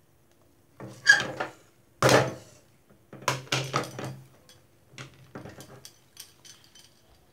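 Silicone spatula scraping thick mashed-potato stuffing out of a non-stick kadai and tapping against the pan and a ceramic plate, with the pan knocking against the plate rim. The sound comes in several short, irregular clusters of clatter and scraping.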